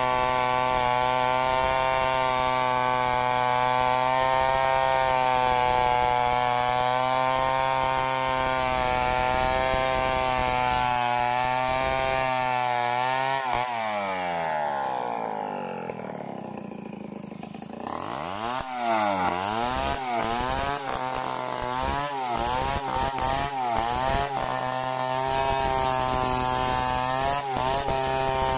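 Petrol chainsaw running at full throttle while ripping a log lengthwise into boards. About halfway through the engine winds down to idle for a few seconds. It is then revved up in several quick bursts and settles back to a steady high pitch as a new cut begins.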